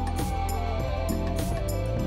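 Background music: a sliding melody over a held bass, with a light regular beat.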